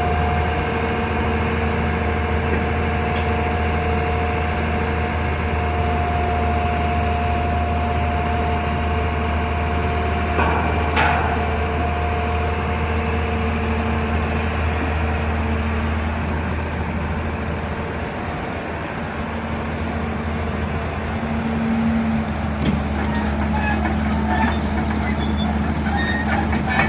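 Excavator's diesel engine running steadily with a low drone and a steady whine over it, with a couple of short knocks about ten and eleven seconds in.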